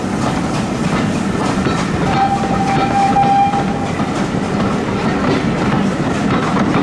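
Heritage railway train running on the rails, with steady wheel rumble and rail clatter. About two seconds in, a single high steady tone sounds for nearly two seconds.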